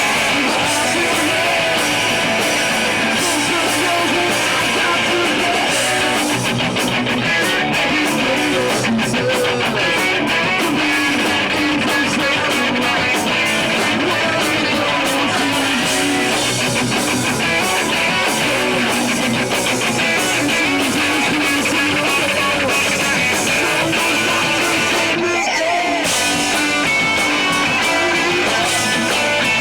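Live rock band playing a song, with electric guitars to the fore.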